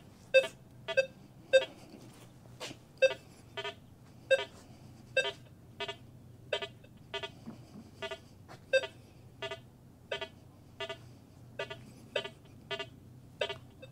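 Rutus Versa metal detector with DD23 coil sounding short target-response beeps, about two a second, mostly on one mid pitch, as the coil passes over test targets such as a dime.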